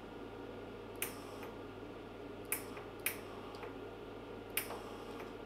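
Steady low hum of an idling Cebora Pocket Pulse inverter MIG welder, with four short sharp clicks spread over the few seconds, two of them close together in the middle.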